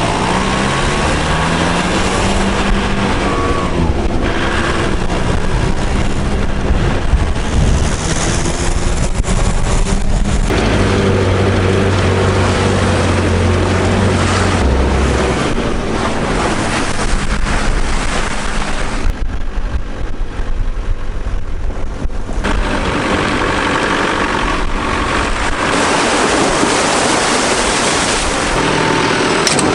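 Engine of a homemade trophy-raid off-road car running hard while it drives fast, its pitch stepping up and down with throttle and gear changes, mixed with wind on the microphone and tyre noise over wet mud.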